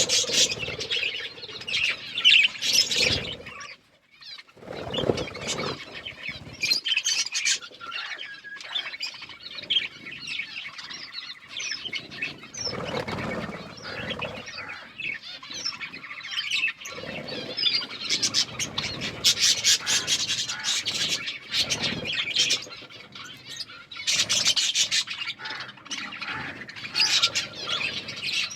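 Budgerigars chirping and chattering, a busy stream of quick, high chirps that comes in bursts with brief lulls.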